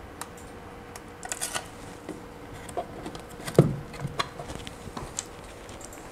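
Outdoor Wi-Fi access point being handled and pressed onto its wall mount: scattered light clicks and scrapes, with one louder knock about three and a half seconds in.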